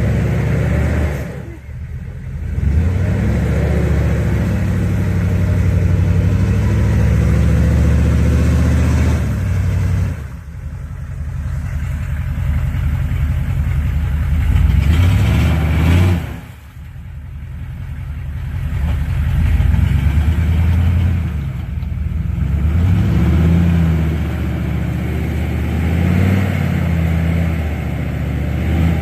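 Hummer's engine revving hard under load while driving through a deep mud hole, the revs climbing and easing off again and again, with four short dips where the throttle is let off.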